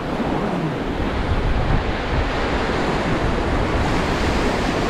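River rapids rushing and churning around a paddle raft as it runs into whitewater; a steady roar of water that grows a little louder over the first second or two.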